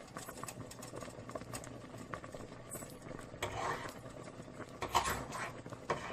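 Milk-and-rice kheer simmering in a pot: a faint steady hum with many small irregular bubbling pops, and a few louder clicks about three and a half and five seconds in.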